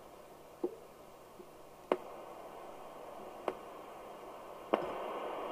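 Four sharp clicks of a switch on the signal test set being stepped. With them, the hiss from the Midland 3001 FM CB radio's speaker rises in two steps, near two seconds in and again near the end: the test signal is being turned down towards a few microvolts, so the receiver quiets less and more noise comes through.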